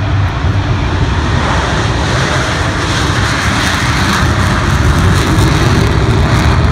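Four Blue Angels F/A-18 Hornet jets taking off in close formation, their jet engines at takeoff power. The loud noise grows louder from about a second and a half in as they lift off.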